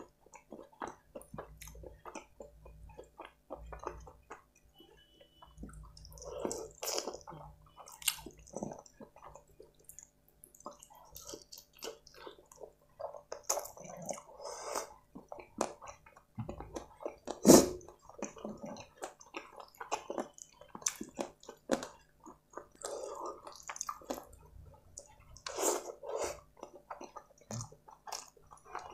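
Close-miked chewing and wet, sticky mouth sounds of a person eating curry-soaked rice and chicken by hand, mixed with the squelch of fingers working rice and butter chicken gravy together on a steel plate. The clicks are irregular, with one louder sharp sound a little past halfway.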